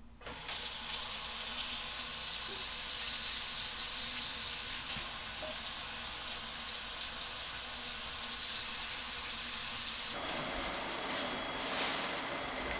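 Tap water running steadily from a kitchen faucet into a ceramic double-bowl sink, a drainage test of the newly installed sink. About ten seconds in it cuts to a vacuum cleaner running.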